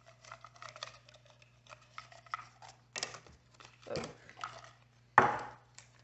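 Paper rustling and crinkling as a small folded paper slip is taken from a plastic cup and unfolded, with light taps and clicks. A short, louder burst comes about five seconds in.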